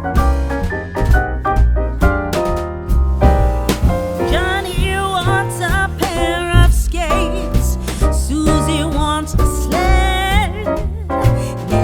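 Background music: keyboard chords over a steady beat, with a singing voice coming in about four seconds in.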